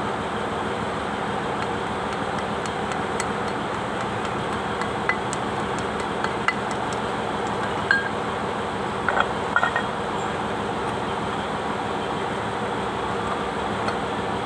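Metal tractor axle parts clinking and knocking lightly as they are handled and set down, a few small scattered clicks with a couple of louder ones past the middle, over a steady background noise.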